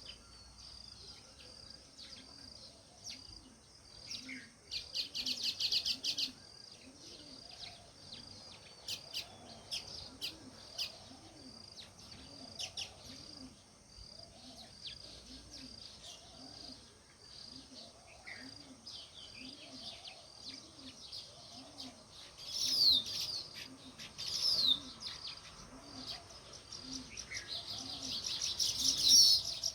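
House sparrows chirping, with short rapid runs of chirps about five seconds in and again near the end. A steady high-pitched insect-like whine and a low sound repeating about once every 0.7 seconds sit underneath.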